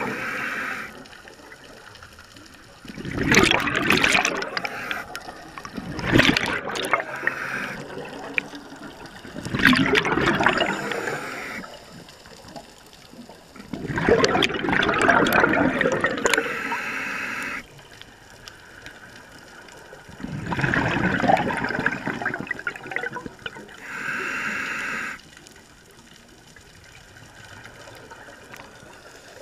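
Scuba diver breathing through a regulator underwater: five loud bursts of exhaled bubbles a few seconds apart, each paired with a short steady hiss of the regulator.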